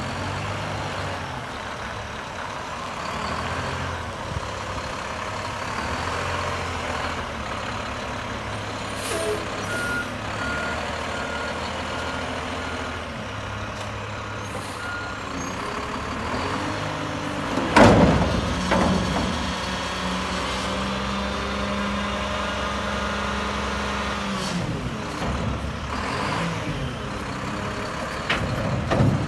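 Mack garbage truck with a Curotto-Can front-loader attachment, its engine running as it pulls up to a cart. Partway through comes a short run of beeps, then a loud air-brake hiss about two-thirds of the way in. After that the engine holds a steady, higher speed for several seconds, with a second short hiss near the end.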